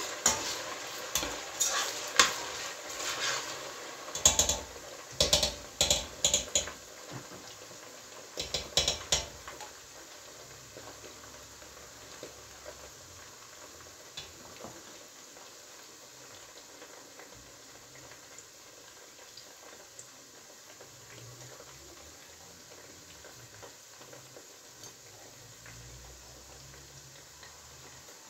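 A metal spoon stirring in a stainless steel pot, with sharp clinks and scrapes against the pot over the first ten seconds or so. After that comes a quieter, steady sizzle of sliced onions frying in oil.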